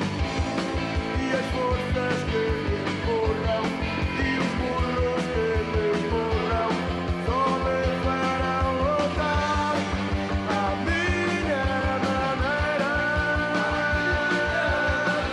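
Rock band playing: electric guitars and bass over a fast, steady drum beat, with a man singing lead.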